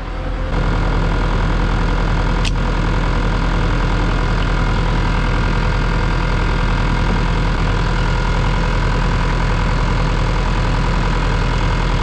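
Electric fuel transfer pump on a slip tank running steadily while diesel is pumped into a skid steer. It switches on about half a second in, over a deeper, engine-like hum. A single sharp click about two and a half seconds in.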